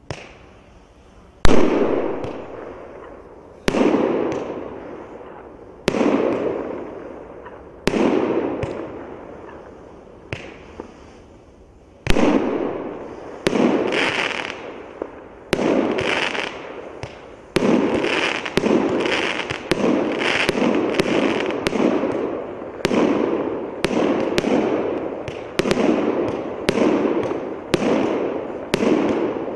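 A 36-shot, 1-inch consumer firework cake (Pirodizainer 'Pesn dushi' PD7072) firing. Sharp bangs each trail off in a fading echo, at first about two seconds apart, then quickening to about one a second or faster from about twelve seconds in.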